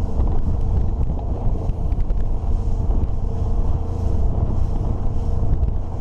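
Motorboat running under way: a steady engine drone mixed with wind buffeting the microphone.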